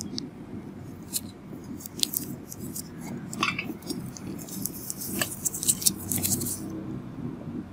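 Scattered small clicks and scratchy crackles over a steady low hum, the clicks thickest about five to six and a half seconds in.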